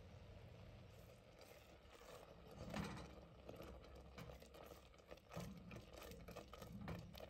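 Rice simmering faintly in water in a stainless steel saucepan, then a silicone spatula stirring it, with irregular scrapes and light taps against the pot starting a few seconds in.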